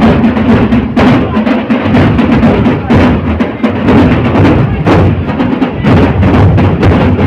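Large procession drums of a taziya march, beating in a fast, unbroken rhythm, loud and close.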